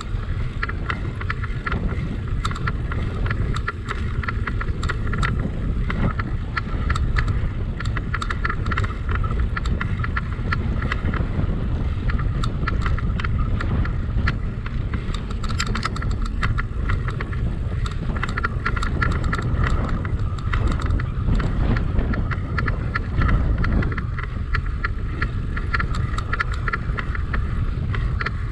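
Bicycle riding along: wind buffeting the microphone over a steady rumble of tyres on the path, with many small clicks and rattles from the bike.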